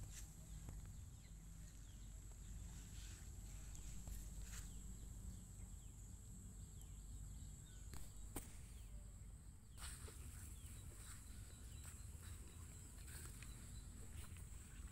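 Faint rural pasture ambience: a steady high-pitched hum over a low rumble, with scattered soft ticks and rustles.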